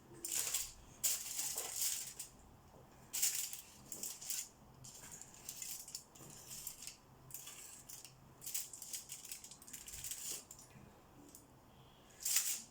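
Kitchen utensil scraping and clinking on a baking tray as cookie dough is spread out, in short irregular scrapes with pauses between them.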